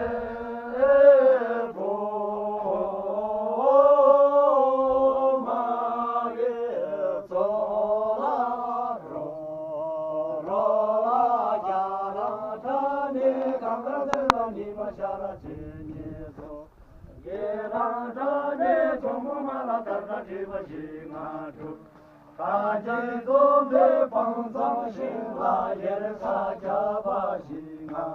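Slow vocal chanting: long, wavering held notes over a steady drone, fading briefly about two-thirds of the way through before picking up again.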